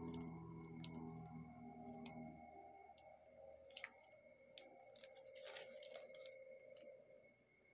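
Clear plastic sticker packets being handled: quiet crinkling of the cellophane sleeves with a few sharp, light clicks and taps.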